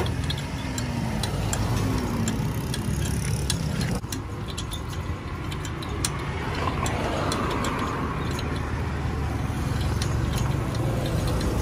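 Steady road-traffic rumble, with light, irregular metallic clicks and rattles from a hand-cranked roller press as a dried squid is fed through its rollers and flattened.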